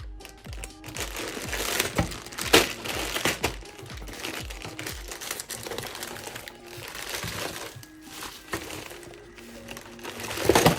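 Plastic packaging crinkling and rustling as the toy gun is unwrapped, in irregular bursts with a sharp crack about a third of the way in and a louder rustle near the end, over background music.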